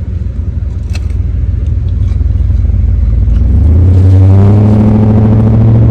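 Car engine rumbling low, then revving up about three and a half seconds in and holding a louder, steady drone.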